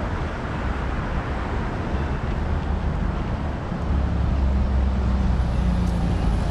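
Street traffic: steady road noise of cars driving past, with a louder, deeper engine sound from about four seconds in as a large vehicle passes close.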